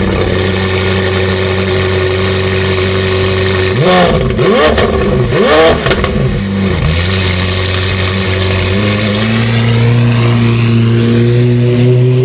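McLaren Senna's twin-turbocharged 4.0-litre V8, through a Novitec RACE GTR exhaust, idling loudly. It is blipped three times in quick succession about four seconds in, then settles back. Near the end it holds a slightly higher, steady idle.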